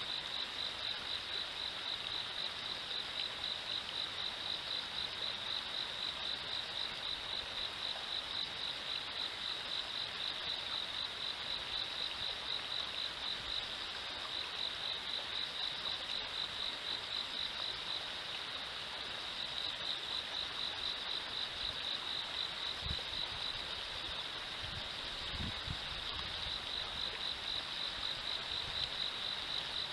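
An insect, cricket-like, chirping continuously in a high, evenly pulsing trill, over the steady hiss of river water running over a shallow riffle.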